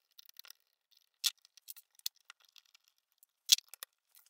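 Scattered light clicks and snips of hand tools working on an angle grinder's power cord, with a sharp snip about a second in and a louder snap about three and a half seconds in.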